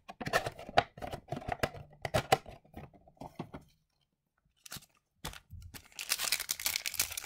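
Foil wrapper of a hockey card pack crinkling and tearing as it is opened by hand: a run of sharp crackles, a short pause about halfway, then a denser stretch of crinkling and tearing near the end.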